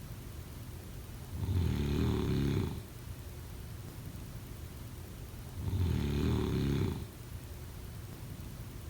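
A person snoring at a regular pace: two low snores, each about a second and a half long and about four seconds apart, with quieter breathing between.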